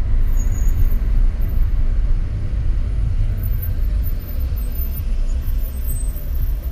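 Steady low rumble of a car's engine and road noise, heard from inside the moving car.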